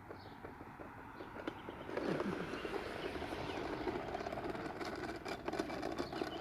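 Toy bubble lawnmower being pushed, its plastic wheels and mechanism clicking and rattling, growing louder and denser about two seconds in.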